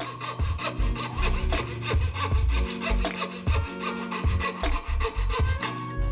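Coping saw cutting through a hardwood handle scale in quick, even back-and-forth strokes, a rasping scrape on each stroke. Background music plays underneath.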